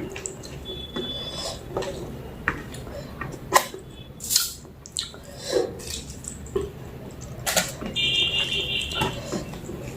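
Close-up eating sounds of mutton curry and rice: chewing with irregular wet smacks and mouth clicks, and a few sharper smacks. A brief high chirping sound comes near the end.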